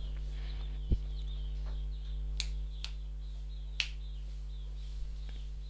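A few sharp, isolated clicks, about four spread across the stretch, over a steady low electrical hum. Faint high chirping sounds in the background.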